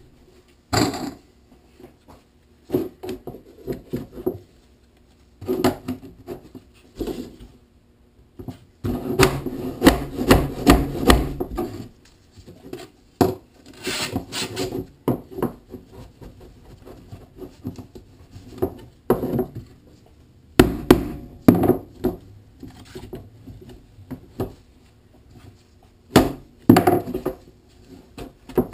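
Plastic pipe frame being assembled by hand: pipes and elbow fittings knocking on a wooden bench, clattering together and rubbing through a fabric sleeve, in irregular bursts with short pauses.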